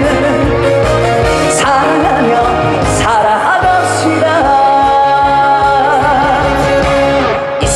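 Live trot music: a band backing with a steady beat under a melody line.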